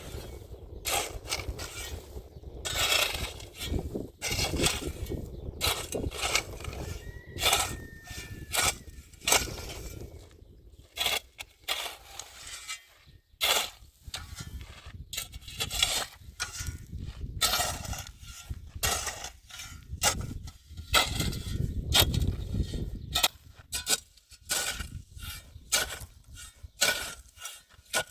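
Irregular knocks, clicks and clatter: many sharp strikes at uneven spacing, with a short squeak about eight seconds in.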